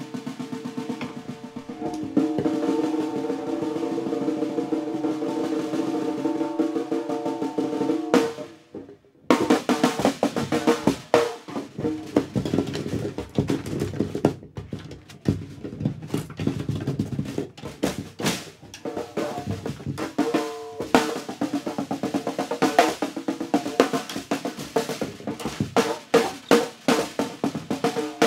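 Solo snare drum played in free improvisation. There is a fast, continuous roll with a steady ringing tone for about eight seconds, a sudden brief break, then dense, irregular strikes and flurries.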